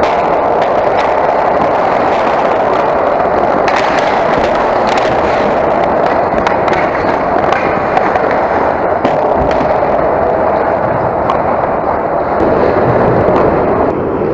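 Ice hockey play on a rink: a steady scraping hiss of skates on the ice, with scattered sharp clacks of sticks and puck.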